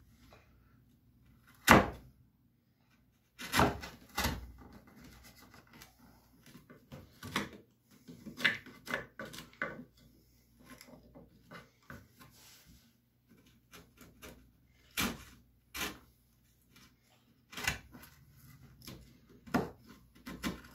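Hand chisel paring wood out of a cavity in a bass guitar body: short scraping cuts at irregular intervals, the sharpest about two seconds in.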